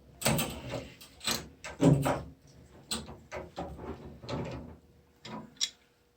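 Metal wrenches clanking and scraping on a washing-machine shut-off valve fitting as it is turned, in about eight irregular knocks, the loudest about two seconds in.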